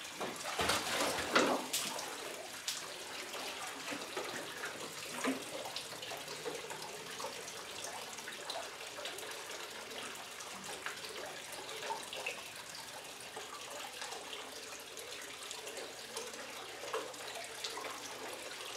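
Tap water pouring into a metal bucket standing in a water-filled concrete trough: a steady run of splashing and trickling. There is a burst of louder splashing about a second in.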